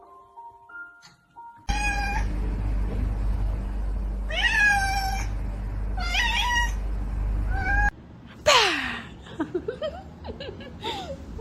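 Domestic cat meowing about four times over a loud steady low rumble, then, after a sudden change, one loud meow sliding down in pitch followed by several shorter meows.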